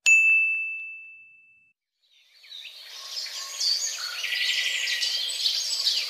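A single bright ding sound effect, one clear bell-like tone that rings out and fades over about a second and a half. Then, from about two seconds in, birds chirping and singing in a busy chorus of many short high calls.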